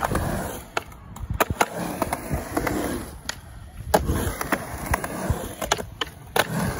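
Skateboard rolling and carving through a concrete bowl, the urethane wheels making a steady rolling noise, with a series of sharp clacks and knocks from the board against the concrete, the loudest about four seconds in and another near the end.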